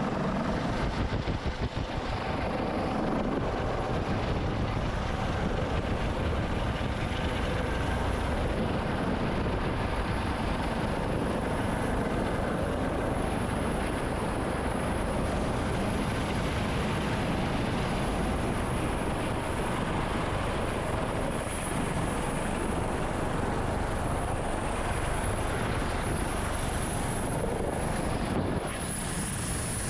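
MH-65 Dolphin helicopter running steadily, its rotor and turbine engines a constant dense noise with a thin high whine, heard close up from inside the aircraft. It drops slightly in level near the end.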